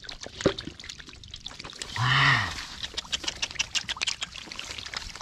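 Muddy shallow water sloshing and splashing, with quick irregular clicks and drips, as hands grope for fish in the mud. A short shouted exclamation comes about two seconds in.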